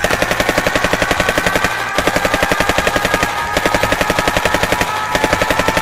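Automatic rifle fire sound effect: one long continuous burst of rapid shots, about ten a second.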